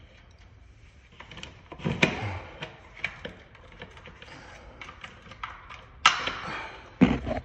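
Plastic clicks, taps and rubbing as a smoke detector is handled and taken down from its mounting base, with a few louder knocks about two, six and seven seconds in.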